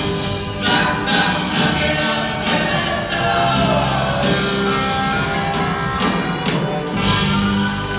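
Live rock band playing with voices singing, heard on an audience tape recording that sounds distant and of poor quality.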